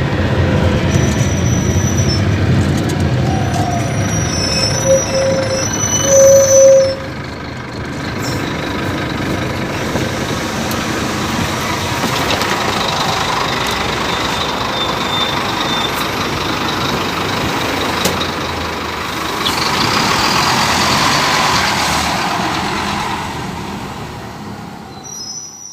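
Scania K250UB city bus with its Euro 5 diesel engine running, with a brief loud tone about six seconds in and a swelling rush around twenty seconds in. The sound fades out at the end.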